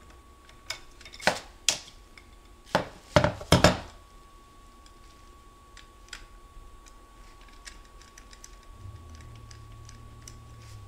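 Metal hand tools clinking and clanking against metal, about six sharp strikes in the first four seconds, the last ones the loudest, then only faint light ticks.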